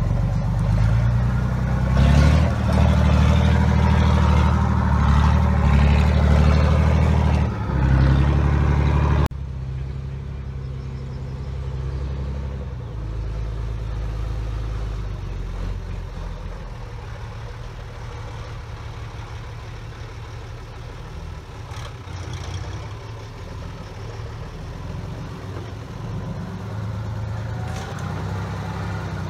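Mercedes-Benz Unimog 417's six-cylinder diesel engine running, loud and close for about the first nine seconds; then it cuts off suddenly to a quieter, more distant engine note that runs steadily on.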